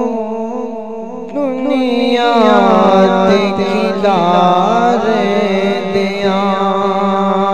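Opening of a Punjabi devotional song: wordless, ornamented singing that bends up and down over a steady hummed drone.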